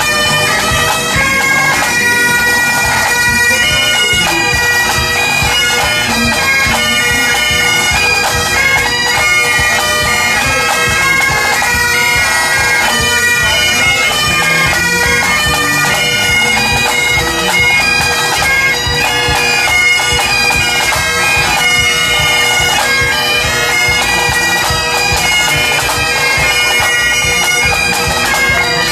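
A pipe band playing: Great Highland bagpipes play a tune over their steady drone, with snare and bass drums beating under it.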